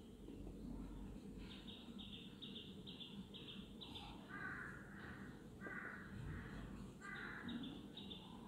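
A crow cawing faintly three times, each call about half a second long, starting about four seconds in. Before the caws there is a quick run of short, high chirps.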